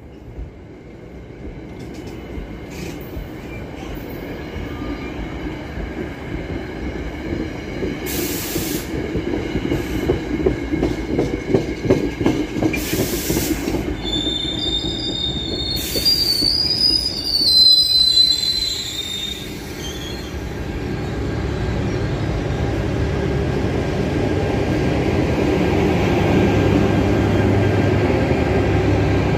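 NJ Transit commuter train passing close by: the coaches' wheels clatter and rumble over the rails, with a short high-pitched wheel squeal about halfway through. Near the end the locomotive pushing at the rear goes by with a deeper, steady drone, the loudest part.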